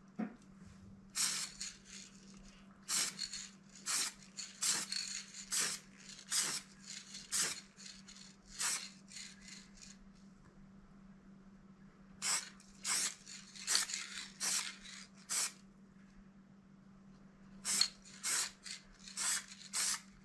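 Aerosol can of chrome-effect spray paint spraying in quick short hissing bursts, about two a second in runs, pausing twice along the way. A faint steady hum lies underneath.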